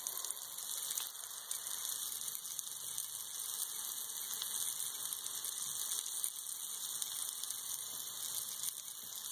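Chicken-of-the-woods mushrooms sizzling in a frying pan, a steady even hiss.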